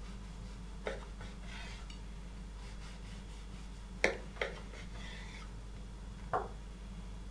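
Kitchen knife cutting through a baked yeast-dough poppy-seed roll on a wooden cutting board. The blade knocks against the board in a few sharp taps, the loudest about four seconds in, with soft scraping of the crust between them.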